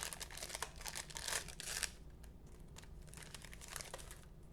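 Trading-card pack wrapper being torn open and crinkled for about two seconds, then quieter handling with a few light clicks.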